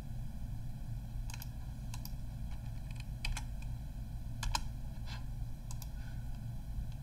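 About six scattered single clicks from a computer's keys or mouse while a program is started, heard over a low steady hum.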